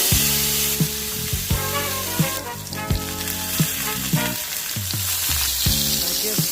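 Food sizzling as it fries in a hot pan, a steady crackling hiss, with background music that has a steady beat playing underneath.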